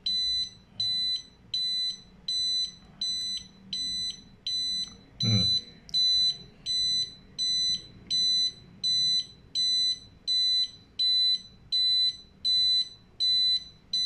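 Eaton conventional fire alarm control panel's internal buzzer beeping steadily, about three high beeps every two seconds. It is the panel's fault warning: the zone and sounder circuits show faults because no end-of-line resistors are fitted yet.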